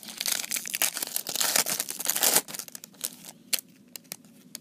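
A 1991 Fleer Ultra football card pack's wrapper being torn open and crinkled by hand. The crinkling is dense for about two and a half seconds, then gives way to a few faint ticks and rustles.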